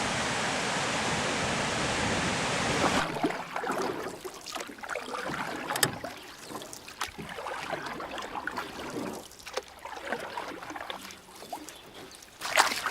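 A steady rushing noise that cuts off abruptly about three seconds in, followed by water splashing and lapping around a kayak, with irregular paddle strokes and a louder splash near the end.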